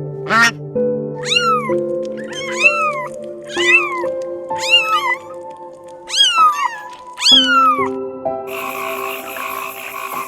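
A cat meowing again and again, about seven short meows that each rise and fall in pitch, over steady background music. Near the end the meows stop and a dense buzzing chorus takes over.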